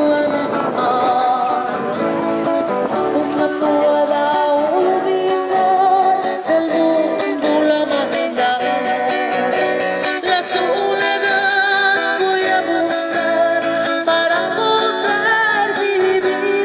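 Live street music: a nylon-string acoustic guitar is strummed and plucked while a woman carries the melody into a microphone, amplified through a small portable speaker.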